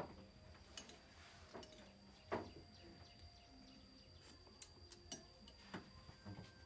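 Faint, scattered clinks of a metal spoon against a ceramic bowl of porridge, about half a dozen, the clearest about two and a half seconds in, over a thin steady high-pitched tone.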